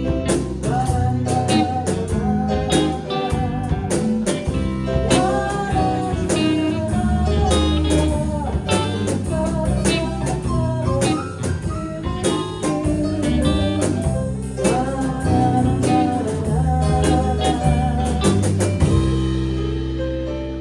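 Live band playing an instrumental ending on guitar, bass and drums, closing on a held chord that fades near the end.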